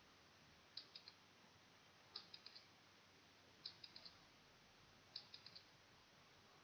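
Countdown-timer ticking sound effect: four short bursts of three or four quick clicks, about one and a half seconds apart, faint.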